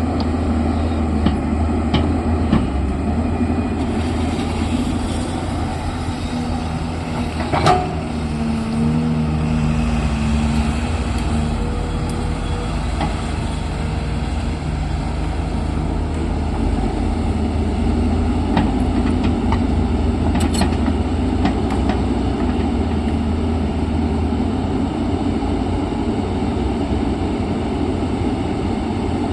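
Diesel engine of an earthmoving machine (backhoe loader or excavator) running steadily at work. A single sharp knock comes about eight seconds in.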